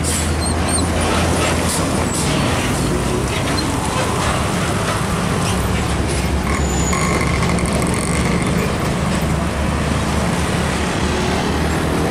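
Heavy diesel trucks and road traffic passing at close range: a steady low engine drone over tyre and road noise, with a short high tone about seven seconds in.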